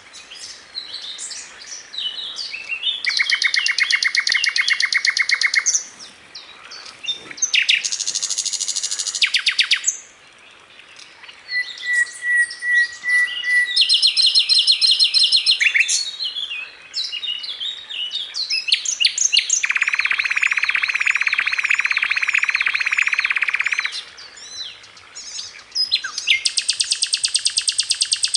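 Sikatan londo flycatcher singing: a run of rapid buzzing trills lasting a few seconds each, the longest about two-thirds of the way through, alternating with sharp, varied chirps and twitters.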